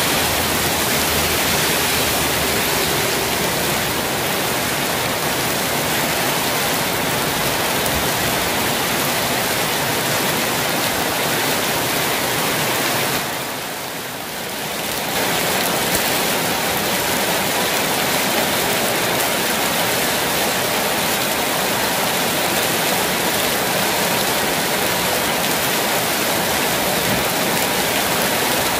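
Heavy tropical rain pouring steadily, a dense even hiss. It dips for a second or two about halfway through.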